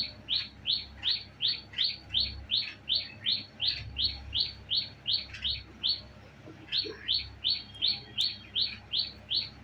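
Parrot calling in a rapid, even series of short, sharp chirps, about three a second, with a brief break a little past the middle.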